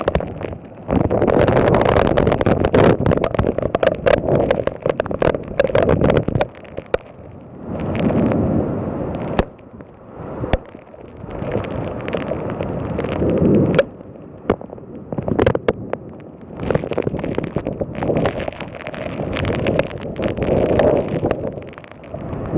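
Storm wind gusting hard against the microphone in rough, swelling blasts, with many sharp taps scattered through it.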